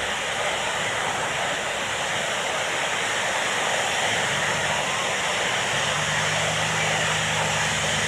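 Steady rush of breaking surf and wash, with a low steady engine drone coming in about four seconds in and stepping up slightly in pitch near six seconds.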